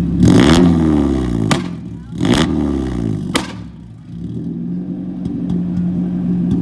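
First-generation Mazda Miata's four-cylinder engine blipped twice from idle, each rev rising quickly and falling back, with a sharp crack from the exhaust as each rev drops off. It then settles back to a steady idle.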